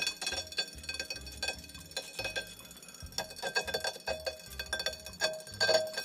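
Tacx NEO smart trainer's motor brake making irregular metallic clinks with a ringing tone as it is pedaled, metal touching metal. Such a noise may mean metal pieces or dust are stuck to the magnet in the motor brake.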